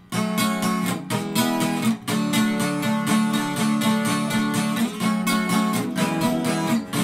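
Intro music: an acoustic guitar strumming chords in a steady rhythm.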